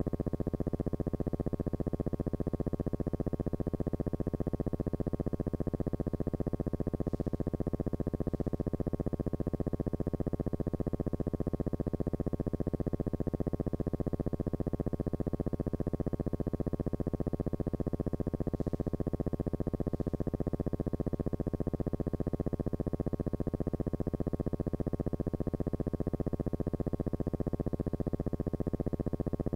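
Background music: a steady synthesizer drone on unchanging tones.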